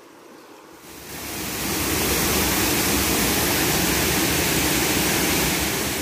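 River water rushing over rocks: a steady rush of flowing water that fades in over the first two seconds, then holds loud and even.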